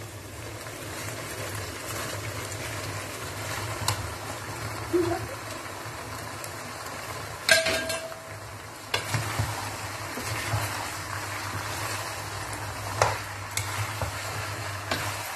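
Macaroni and ketchup chicken gravy sizzling in a non-stick wok as they are mixed with a spatula, with a steady frying hiss. A few sharp knocks of the utensil on the pan, the loudest about halfway through.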